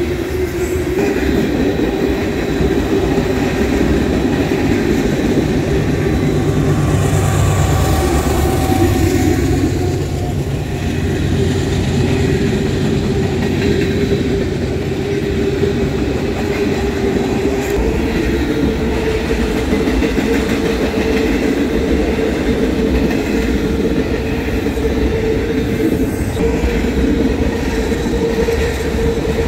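A long freight train's cars rolling past at close range, wheels rumbling and clattering over the rail joints. A steady squealing tone from the wheels runs underneath and steps up in pitch about two-thirds of the way through.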